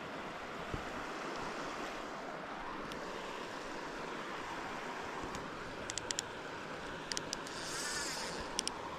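Steady rush of river water with wind on the microphone, broken by a few quick, sharp clicks in the second half and a brief hiss near the end.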